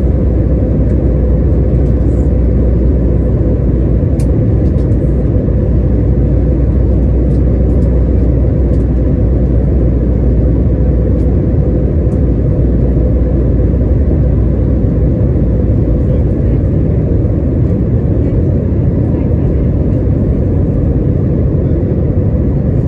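Jet airliner cabin noise during descent: a loud, steady low rumble and rush of the engines and the airflow past the fuselage, with a faint steady hum.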